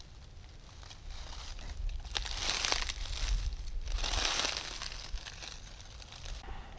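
Dry leaf litter rustling and crinkling, swelling twice in the middle, over a low rumble of wind on the microphone.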